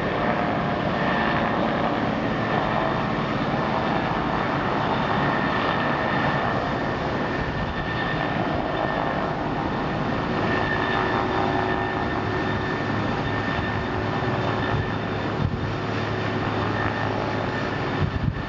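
Steady engine drone at an even level, with a few faint steady tones running through it.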